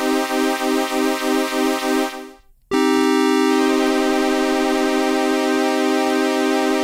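Analog polyphonic synthesizer holding a note with LFO-driven pulse-width modulation, its tone pulsing about three times a second. About two seconds in the note dies away, and a fresh note starts and is held steadily.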